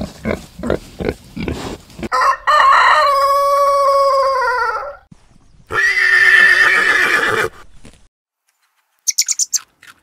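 Farm animal calls in turn: a piglet's short grunts about three a second, then one long pitched call held for about two and a half seconds, then a horse whinnying with a wavering pitch. Faint high chirps come near the end.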